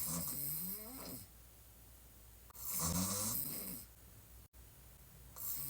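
A woman snoring on her back with her mouth open: three snores in a slow, regular rhythm, about every two and a half to three seconds, each lasting about a second with a rising pitch, the middle one loudest.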